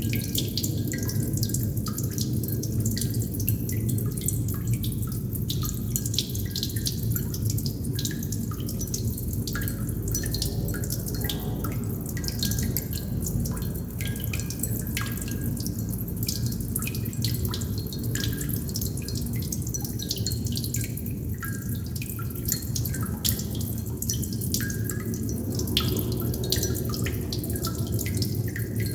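Water droplets dripping irregularly, a few small pitched plinks a second, over a steady low background rumble.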